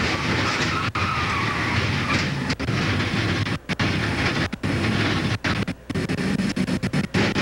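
Engine and road noise roaring inside a NASCAR Cup car's cockpit, picked up by the in-car camera microphone. The sound drops out for split seconds several times, more often toward the end, as the in-car camera's transmission breaks up.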